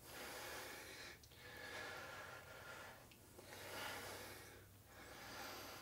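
Faint, slow heavy breathing of people straining through a set of dumbbell pulls, about four breaths in and out.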